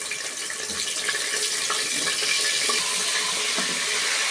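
Ginger-garlic paste frying in hot oil in a pressure cooker: a steady sizzling hiss that builds a little over the first second, then holds.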